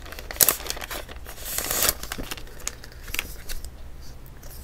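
Clear plastic sleeve crinkling and rustling as a small photo book is slid out of it, with a few sharp taps of handling. The rustle is loudest about a second and a half in.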